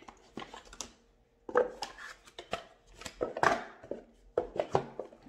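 Hands handling a small cardboard box and objects on a cloth-covered table: a string of taps and knocks with some rustling, loudest around the middle.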